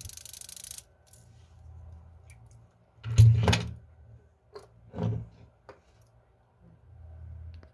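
Alarm train of an old Veglia wind-up alarm clock movement rattling rapidly after its release spring lets it go, then cutting off suddenly about a second in. A few soft knocks from handling the open movement follow.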